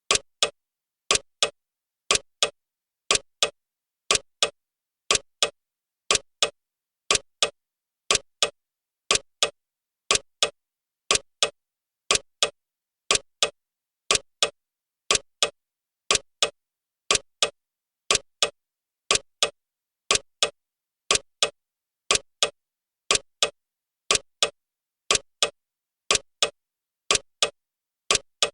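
Clock ticking steadily, about one tick a second, each tick a short sharp click with silence between.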